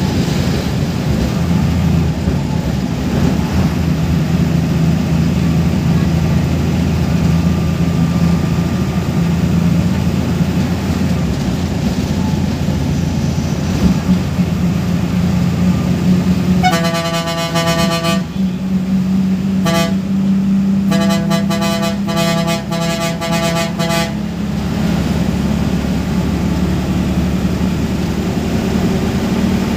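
Bus's diesel engine running steadily, heard from inside the driver's cabin. About 17 seconds in the horn sounds: one blast of about a second and a half, a short toot, then a quick string of toots lasting about three seconds.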